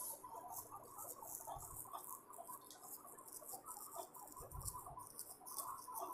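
Faint, irregular squeaky ticks and scratches, with a soft low thud twice.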